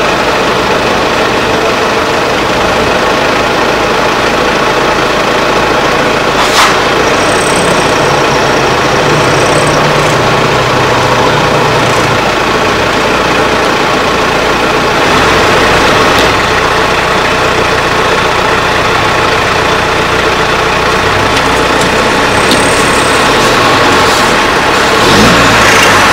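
A vehicle engine idling steadily, with a sharp click about six and a half seconds in and a rise in pitch near the end.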